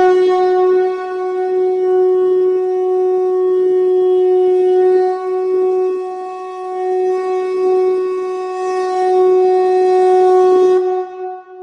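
A conch shell (shankh) blown in one long, steady, loud note. It starts abruptly and cuts off near the end, leaving a short fading ring.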